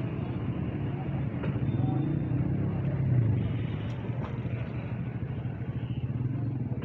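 Steady low rumble of a busy street-food stall, with chicken deep-frying in oil in a large karahi over a gas burner and a few faint clicks.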